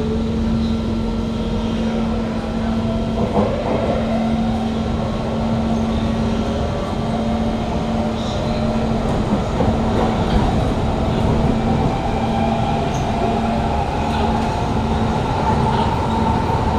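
Kawasaki Heavy Industries C151 metro train heard from inside the car: its GTO-VVVF traction motors whine, the pitch climbing slowly as the train gathers speed, over a steady low hum and wheel-on-rail running noise with a few knocks.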